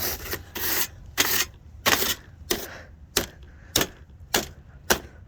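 Repeated brushing and tapping strokes on a plastic box fan, about one every half second or so. The first strokes are longer scrapes and the later ones short, sharp clicks.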